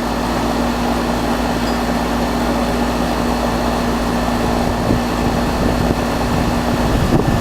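A 3-ton outdoor air-conditioning condensing unit running steadily, its condenser fan blowing with a constant low compressor hum beneath.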